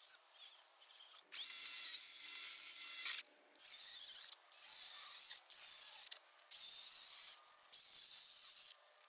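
Battery-powered chainsaw run in six short bursts, each a second or two long with brief pauses between, a high motor-and-chain whine that starts and stops with the trigger. A few light clicks come before the first burst, about a second in.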